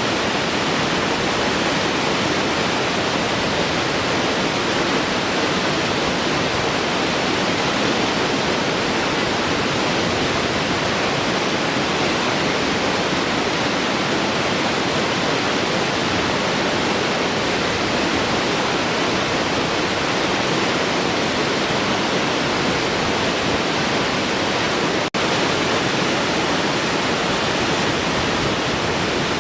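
A large waterfall pouring, a steady, even rush of falling water, broken once near the end by a split-second dropout.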